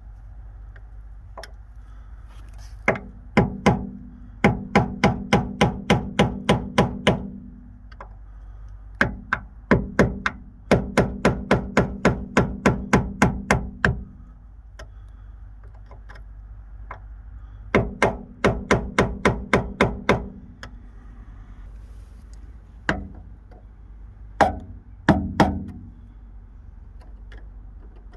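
Hammer blows on a bushing removal tool, driving out a hard-to-shift lower door hinge pin bushing on a Jeep Wrangler JK. The blows come in quick runs of about three to four a second, some runs up to a dozen strikes long, with pauses between them.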